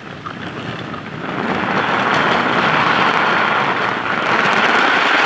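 Mini RC crawler's small electric motor and gears running and its tyres rolling over a wooden floor, picked up close by a phone mounted on the vehicle. The sound swells about a second in and then holds steady as it drives.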